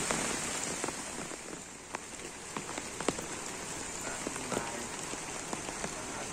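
Heavy rain falling on a river and its muddy, grassy bank: an even hiss with scattered sharp ticks of single drops landing close by.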